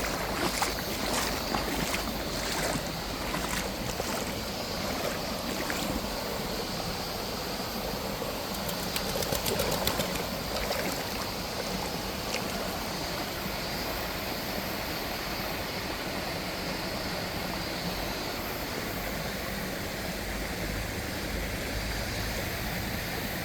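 Clear, shallow spring-fed stream running steadily, with light splashing and water noise through the first half that then settles into an even rush of flowing water.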